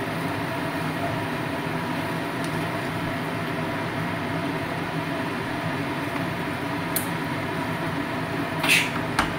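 Steady whirring hum of a fan or motor, even throughout, with a light click about seven seconds in.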